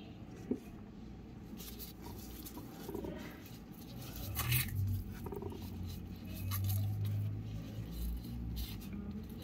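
Gloved hands stuffing rice filling into a hollowed vegetable: soft squishing and rustling of thin plastic gloves, with scattered small clicks and a low rumble that swells in the middle.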